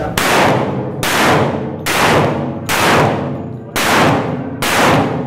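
Six pistol shots fired at a steady pace of about one a second, each one loud and echoing off the concrete walls of an indoor range.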